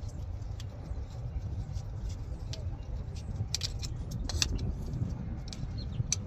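Scattered light metallic clicks and clinks of hand tools and hose clamps, the loudest a little past the middle, over a steady low rumble.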